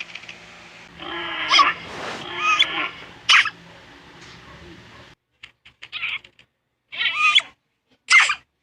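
An animal's repeated short, high-pitched squeaky calls, several in a row, with two sharper, briefer ones about a third of the way in and near the end.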